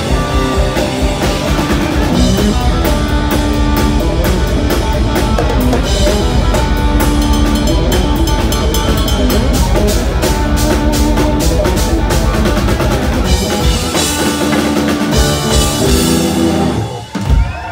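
Live rock band playing loud: electric guitar, bass and a drum kit, with rapid, dense drum strikes through the middle. The song comes to its end with a last hit and stops abruptly near the end.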